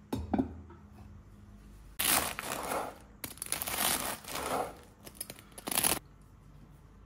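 Serrated bread knife sawing through a crusty baguette on a wooden board, in four long strokes starting about two seconds in, the crisp crust crackling under the blade. A short knock just at the start.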